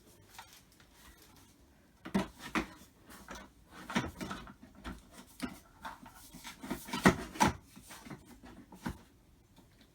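Handling noises from a pressure washer and its parts being turned and moved about: an irregular run of short knocks, taps and rubs, the loudest about seven seconds in.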